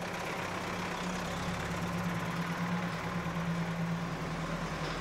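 Engine of a small gas-cylinder delivery truck running steadily as it drives off down the street, a constant low hum.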